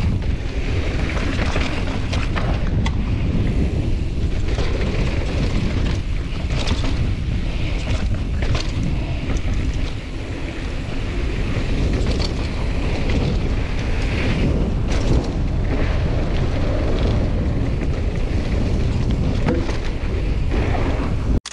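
Wind buffeting the microphone and tyres rumbling over a dirt trail as a mountain bike descends at speed, with scattered knocks and clatters from the bike. It cuts off suddenly at the very end.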